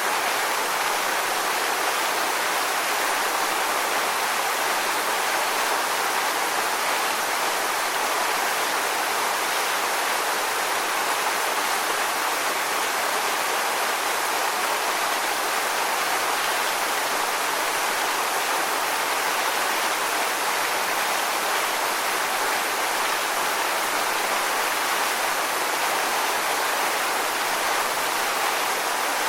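Waterfall rushing steadily: an even, unbroken hiss of falling water, strongest in the middle and upper range, with no distinct splashes or changes.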